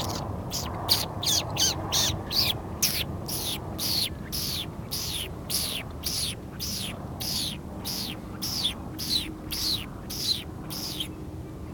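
A bird calling a rapid series of short, harsh notes, each sliding down in pitch, about two to three a second without a break.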